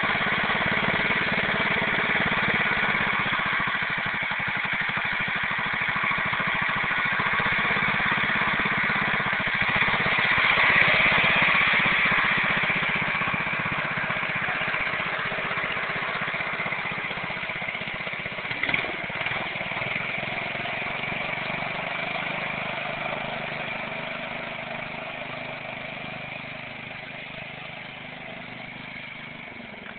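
Single-cylinder 16 hp Briggs & Stratton engine of a Sears garden tractor running under way, steady at first, then fading over the second half as the tractor moves off. One short click about two-thirds of the way through.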